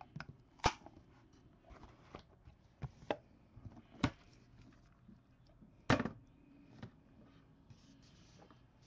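Hands handling a cardboard box of football trading cards as it is opened: its lid is lifted off and the box set down, giving a string of irregular clicks and knocks, the loudest about six seconds in.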